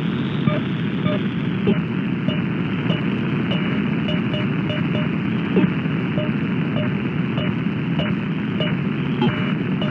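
Shortwave radio reception on 6228 kHz: a steady hiss of band noise with a faint, uneven beat of small blips about twice a second, the syncopated rhythm of an unidentified signal.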